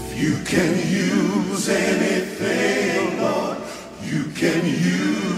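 A woman singing a gospel worship song into a microphone, her long held notes wavering with vibrato, with a short break between phrases about four seconds in.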